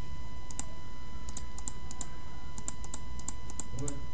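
Light, quick clicks of computer keyboard keys being typed at an irregular pace, often in close pairs, as numbers are entered into a calculator program.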